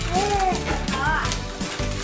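Background music with steady low notes, and children's voices calling out briefly over it.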